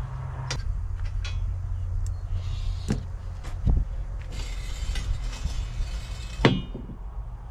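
Metal clanks and knocks from a tractor's battery-compartment steps and cover being unbolted and moved aside. A rasping scrape runs for about two seconds and ends in the loudest knock.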